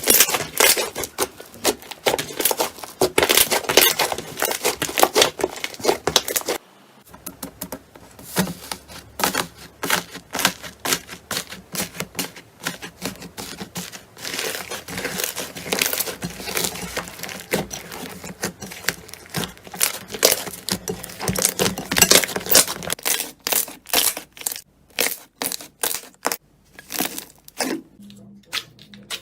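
Slime being worked by hand, giving off dense crackling and popping clicks. About seven seconds in, the sound breaks off briefly and resumes as sparser, separate clicks.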